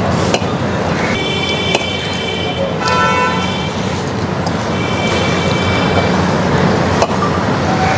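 Road traffic noise with vehicle horns honking three times: a toot about a second in, a shorter one around three seconds in, and another around five seconds in.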